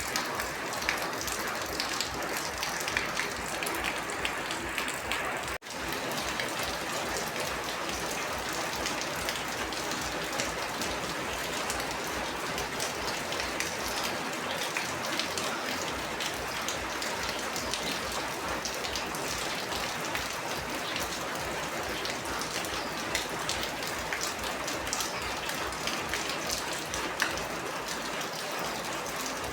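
Steady rain, a dense even hiss of falling water with many small drop ticks. The sound drops out for an instant about five seconds in.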